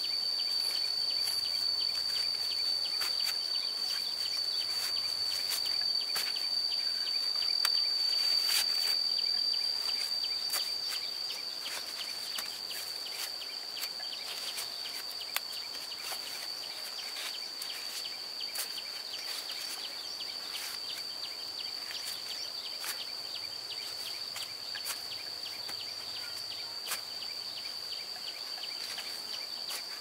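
Insects singing in one steady high note throughout, over a faint outdoor background. Scattered crackles and snaps of dry corn husks and leaves come as ears of corn are broken off and dropped into a bamboo basket.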